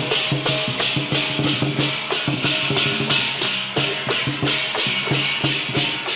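Chinese lion dance percussion band playing: cymbals clashing on a steady beat of about three strokes a second, over drum and gong.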